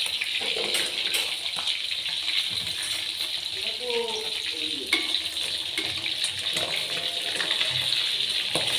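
Fish frying in hot oil in an aluminium wok, a steady sizzle with light crackling; near the end a spatula goes in to turn the fish.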